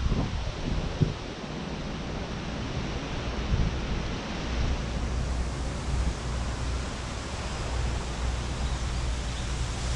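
Wind blowing across the microphone: a steady hiss over a low rumble, gusting a little harder in the first second, with some leaves rustling.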